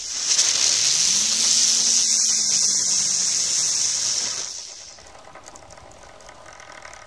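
Ground spinner firework burning with a loud, steady hiss that starts suddenly, under it a faint low hum that rises in pitch as the spinner speeds up. The hiss dies away about four and a half seconds in.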